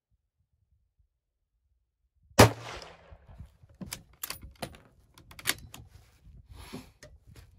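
One shot from a Sako TRG 22 bolt-action rifle firing .308 ammunition: a single sharp, loud crack about two and a half seconds in, with a short echoing tail. It is followed by a string of sharp metallic clicks and clacks as the bolt is worked.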